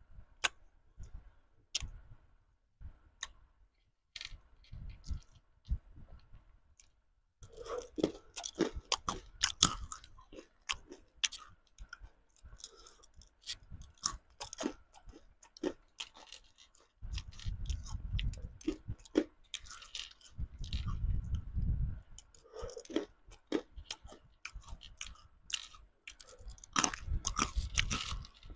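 Close-miked crunching and chewing of candy-coated chocolate beans: a few sparse crunches at first, then dense, rapid crunching and chewing from about seven seconds in.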